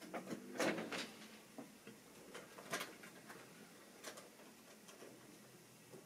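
Light plastic clicks and clacks of model railway rolling stock being handled on the track: a cluster of clacks about half a second to a second in, then single clicks a few times.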